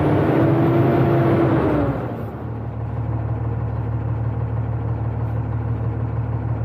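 Truck engine and road noise heard from inside the cab while driving, with a steady drone that fades out about two seconds in. A quieter steady low hum follows.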